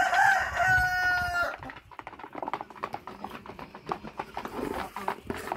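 A rooster crows once, a long steady call that ends about a second and a half in. Then chickens pecking feed from a plastic plate: a run of quick, sharp clicks of beaks on the plate.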